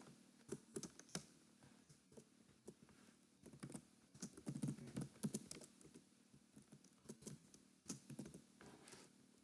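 Faint, irregular keystrokes on a computer keyboard: text being typed in short runs.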